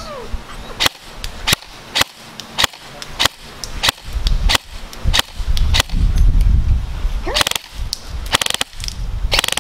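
VFC HK416 CQB airsoft electric rifle with an upgraded APS Silverback gearbox, GMP M120 high-speed motor and 11.1 V LiPo, firing a string of single semi-automatic shots. Each shot is a short, sharp snap, coming about one or two a second, with a couple of quick pairs near the end.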